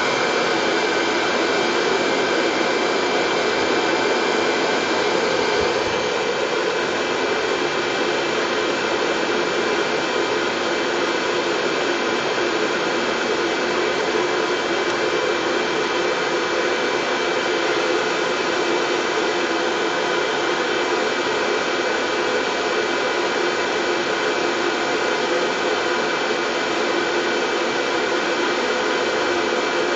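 Steady, unchanging white noise with a faint high steady whine in it, like a running hair dryer or similar appliance motor, used to settle colicky babies.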